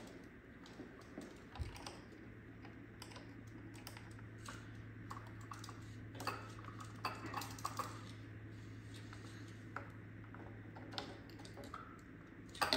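Small irregular clicks, taps and light clatter of a screwdriver and screws working against the plastic chassis of an iRobot Roomba 960 being taken apart. A low steady hum comes in about a second and a half in.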